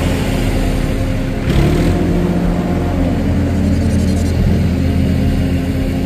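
Massey Ferguson tractor's diesel engine running under load as its hydraulics tip a loaded trailer; the engine pitch dips and rises as the load comes on. There is a brief rush of noise about a second and a half in.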